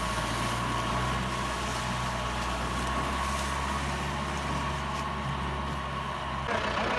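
New Holland 2120 compact tractor's diesel engine running at a steady speed. The sound changes abruptly about six and a half seconds in.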